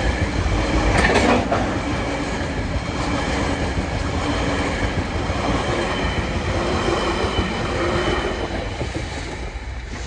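Freight train of container flat wagons rolling past, with steady wheel rumble and clatter on the rails and thin high wheel squeal. There is a brief louder clank about a second in, and the sound fades near the end as the last wagons go by.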